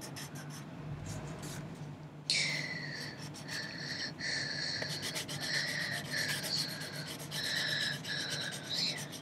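Pencil shading on paper in quick back-and-forth strokes, a scratchy rubbing that grows louder a little over two seconds in.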